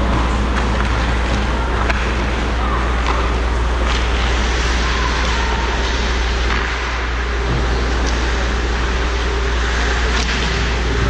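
Ice hockey rink sound: skates scraping and sticks clicking on the ice over the arena's steady low hum, with faint distant voices and a few sharp clicks.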